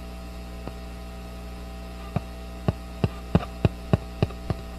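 Stereo speaker playing the signal from a homemade 500-foot pickup coil wound around a beam: a steady mains hum, joined about two seconds in by irregular sharp clicks, several a second.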